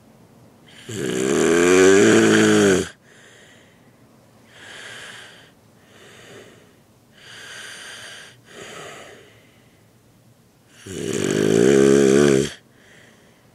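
Snoring: two loud snores, each lasting about two seconds and wavering in pitch, about ten seconds apart, with quieter breathy sounds between them.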